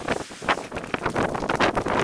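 Wind buffeting the camera's microphone: choppy noise in irregular gusts several times a second.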